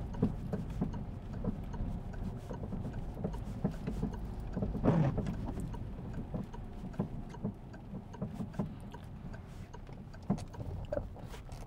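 Inside a car driving slowly: a steady low engine and road rumble, with tyre hiss and light patter from a wet road. A brief louder sound comes about five seconds in.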